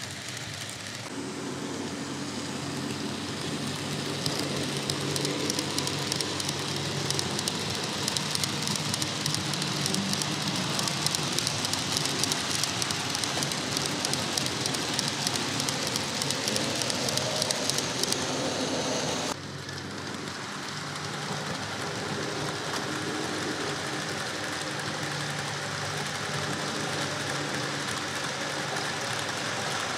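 N gauge model freight train running along the track: a dense, fast crackle of small metal wheels clicking over the rails, over the low hum of the model locomotive's motor. The sound drops suddenly about two-thirds of the way in and carries on more quietly.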